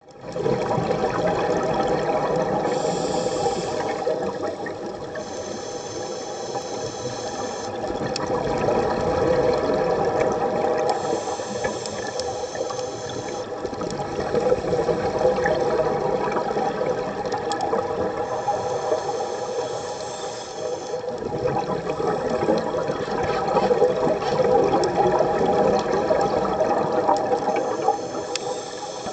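Scuba regulator breathing recorded underwater: a high hiss on each inhalation, coming five times at intervals of several seconds, over the continuous rush of exhaled bubbles.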